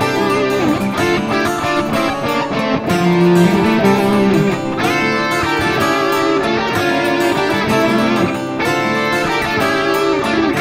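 Thrash metal song: electric guitars play a melodic lead line with held notes, vibrato and pitch bends over the band.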